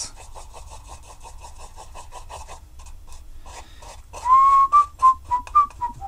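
A wooden stick rapidly scraping and stirring two-part epoxy resin in a plastic cup. About four seconds in, a man whistles a short tune of a few notes.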